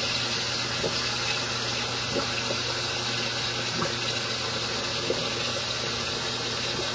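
Steady rush of water from a running sink tap, with a low steady hum underneath.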